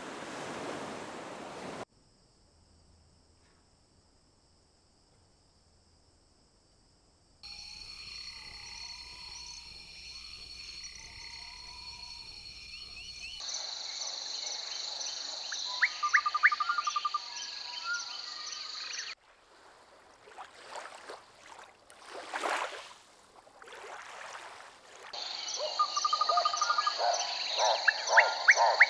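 A sequence of wild-soundscape ambiences. Surf washes on rocks at first. Then come a steady high insect chorus with scattered bird calls and a few swelling rushes of noise. Frogs croak rhythmically, about twice a second, near the end.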